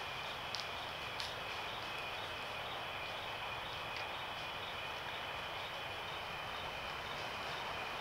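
Steady outdoor background noise: an even hiss with a faint, constant high buzz. A few soft ticks come about half a second in, just after a second and again at about four seconds.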